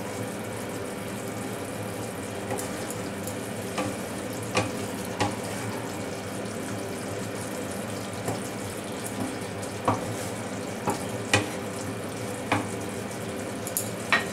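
A spatula scraping and tapping on a frying pan as a whole cauliflower is turned in simmering masala gravy: scattered sharp clicks, about ten in all, over the gravy's steady hiss.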